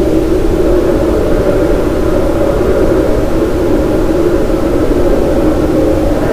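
Steady brown noise made with a Remo thunder instrument through reverb: an even, rushing rumble with no separate strikes.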